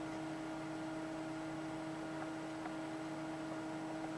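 Steady electrical hum with a faint hiss, broken only by a few very faint ticks.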